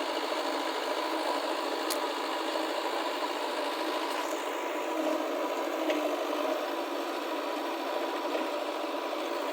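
Diesel engine of heavy loading machinery running steadily, with a single sharp click about two seconds in.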